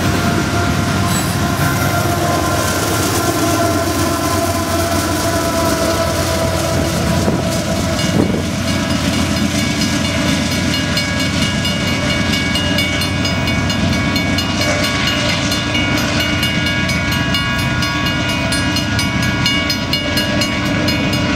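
Union Pacific freight train passing close: GE C44ACCTE diesel-electric locomotives running under load and a long string of center-flow covered hopper cars rumbling and clacking over the rails.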